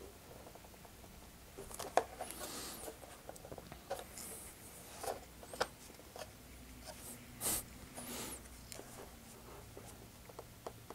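Faint handling sounds as the plastic wing struts of a foam model biplane are worked by hand into their mounts on the wing: scattered light clicks and soft scraping, with a couple of sharper clicks.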